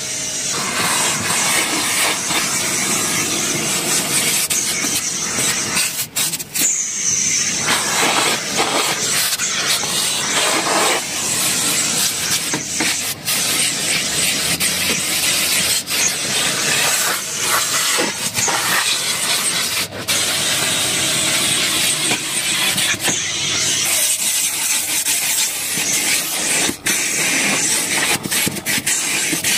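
Car-wash vacuum cleaner running steadily as its wide ribbed hose sucks dirt off a car's floor mat and carpet, with scattered sharp clicks as grit is picked up.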